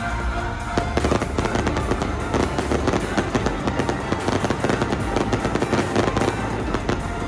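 Fireworks going off in a rapid, dense run of pops and bangs, starting about a second in, over a background music track.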